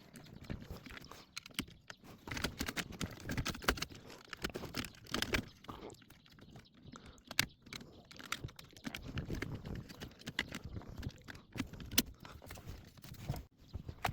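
Plastic interior trim covers around the gear shifter being handled and pressed back into place: irregular clicks, taps and rustling.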